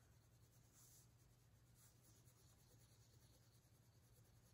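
Very faint pencil shading on paper, a few light scratchy strokes, over a low steady hum.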